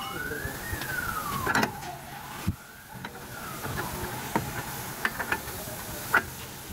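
Metal clanks and knocks as a new CV axle's outer joint is worked into the steering knuckle, the loudest about a second and a half in and near the end. A whine rises and falls twice underneath.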